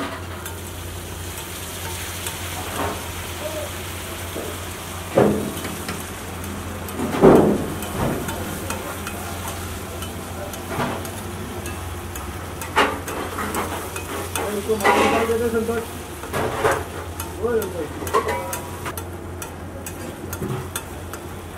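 A metal spatula scraping and stirring bheja (goat brain) masala gravy across a large flat iron tawa, the gravy sizzling as it fries. Louder scrapes and clatters come every few seconds, strongest about 5, 7, 13 and 15 seconds in.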